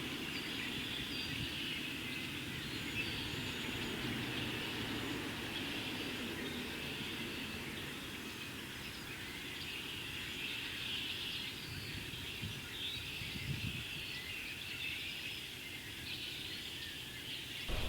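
A large mixed flock of red-winged blackbirds and cedar waxwings calling all at once, a steady dense wash of chatter with no single song standing out, over a low background rumble.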